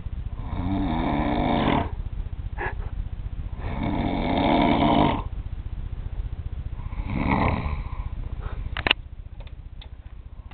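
A man's heavy, beast-like snoring: three long snores about three seconds apart, the last one shorter and weaker. A single sharp click comes near the end.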